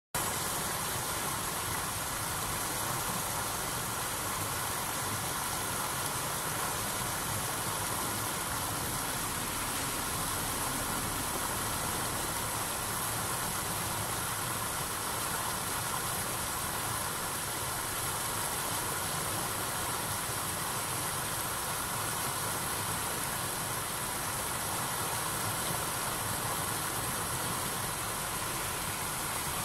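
Steady rush of river water spilling over a low weir into churning white water.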